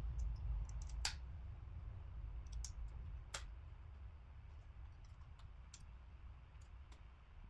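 Faint low hum with a few scattered sharp clicks, the two clearest about one and three and a half seconds in.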